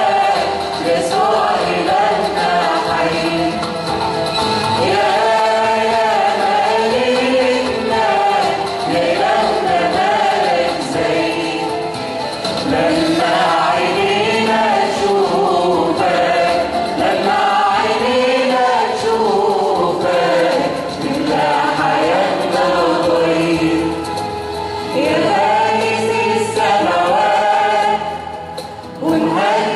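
Church choir singing an Arabic Christian hymn (tarnima), many voices together in a continuous melodic line that pauses briefly near the end before the next phrase.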